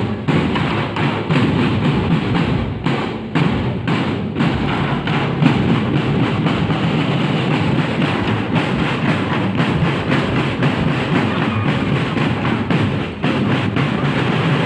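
Drum-led parade music with a steady beat of repeated drum strikes.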